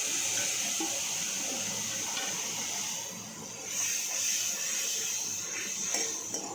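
Tamarind pulp sizzling in hot oil in a kadai, a steady hiss that dips briefly about halfway through.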